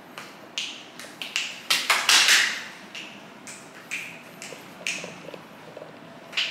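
Nerf foam-dart blaster with a revolving drum being primed and fired, about a dozen sharp clicks and pops, bunched thickest and loudest around two seconds in.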